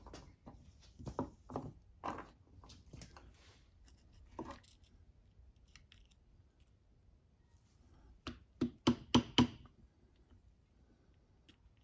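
Hand tools clicking and knocking on metal engine parts during clutch removal. Scattered light clicks give way, about eight seconds in, to a quick run of four sharp knocks.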